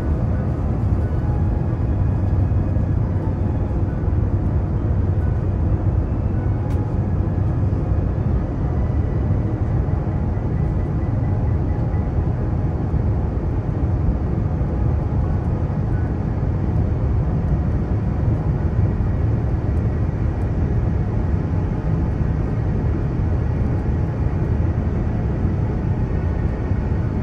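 Steady airliner cabin noise on descent: a deep, even rumble of engines and airflow heard from inside the cabin, with a few faint steady whining tones above it.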